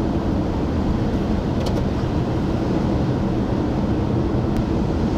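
Steady road and engine noise of a car driving at speed, heard from inside the cabin, with a few faint ticks.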